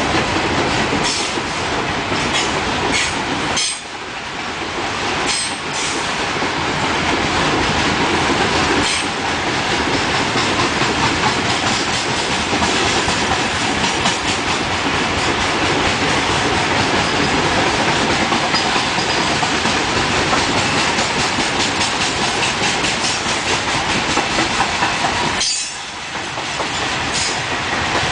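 Loaded coal wagons of a freight train rolling steadily past: a continuous rumble with the clickety-clack of wheels over rail joints. The noise dips briefly about four seconds in and again near the end.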